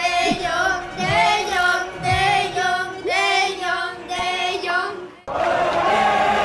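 High singing voices in short phrases of about a second each, like a sung goodbye jingle. About five seconds in they cut off abruptly and a steady stadium crowd noise takes over.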